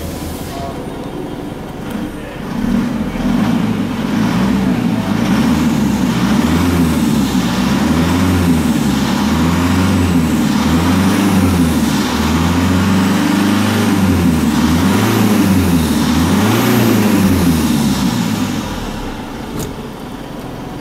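2011 Mitsubishi Triton's 4D56 2.5-litre four-cylinder turbodiesel heard from inside the cab. It idles, then is revved up and down about ten times, roughly once every second and a half, and drops back to a steady idle near the end.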